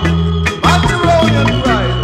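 Skinhead reggae (early reggae) music with a steady bass line. About half a second in the music dips briefly, then a gliding melodic line comes in.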